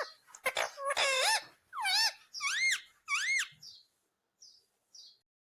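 Indian ringneck parrot calling: a run of about five short squawks, each rising and then falling in pitch, followed by a couple of faint high chirps.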